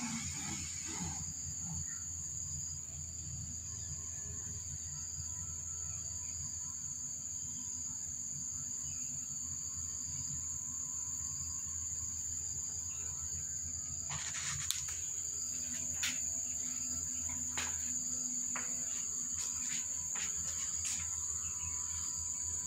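Insects, crickets or cicadas, shrilling steadily at one high pitch over a low steady hum. A few short sharp clicks come in the second half.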